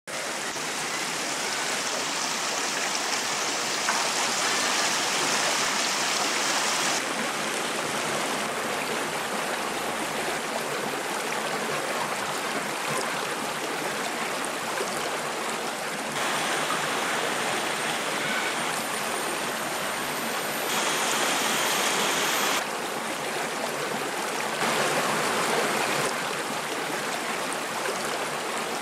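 A shallow, rocky forest stream rushing and splashing over stones. The steady water noise jumps abruptly louder or softer, brighter or duller, several times.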